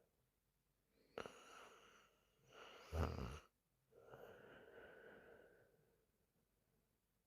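A sleeping woman's snoring breaths: a breath that starts suddenly about a second in, a short, louder snore near the middle, then a long, soft breath out.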